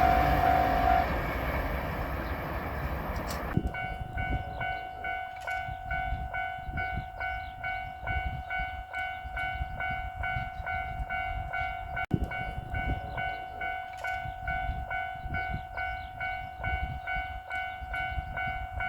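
A JR Shikoku 8000 series limited express electric train rushes through the level crossing for the first few seconds, then the noise stops suddenly. After that the Japanese level-crossing alarm bell keeps ringing in a steady, repeating kan-kan rhythm.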